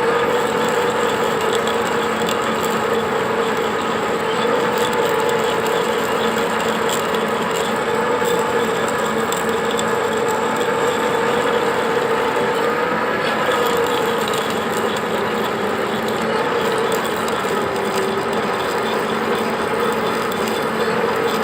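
Metal-turning lathe running steadily while a drill bores into the end of a crankshaft to drill out a broken timing-drive bolt. The machine gives a continuous whine that wavers slightly in pitch over a steady mechanical noise.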